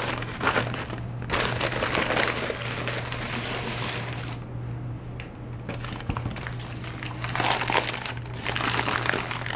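Crumpled newspaper packing crinkling and rustling as hands unwrap items in a cardboard box, in spells with a short lull about halfway. A steady low hum runs underneath.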